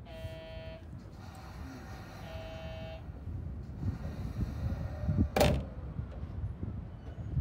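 Sotetsu 11000 series electric train standing at a station platform: two short electronic tones about two seconds apart over a low rumble, then a brief hiss about five seconds in.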